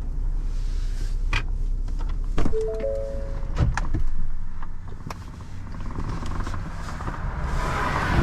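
Vehicle cab sounds: a steady low engine rumble with scattered clicks and knocks, and three short tones stepping down in pitch about three seconds in.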